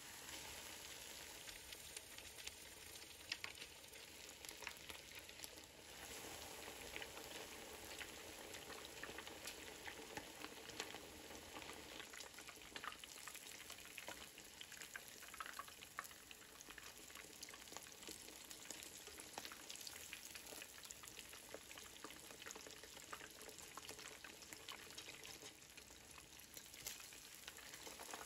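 Panko-breaded cutlets deep-frying in hot oil in a pan: a steady sizzle thick with small crackling pops, starting suddenly as the first cutlet goes into the oil.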